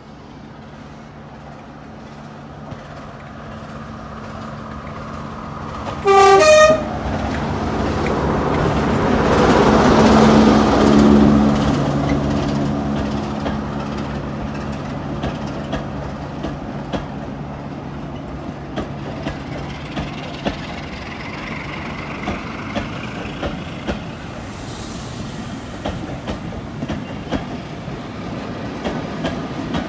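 A diesel locomotive hauling a passenger train approaches and passes. It sounds its horn briefly about six seconds in, and its engine is loudest as it goes by at around ten seconds. The coaches then roll past, their wheels clicking regularly over the rail joints.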